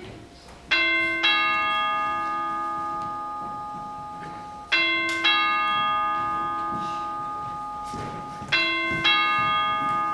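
Two-tone ding-dong doorbell chime rung three times, about four seconds apart; in each pair the second note is lower and both ring on as they fade.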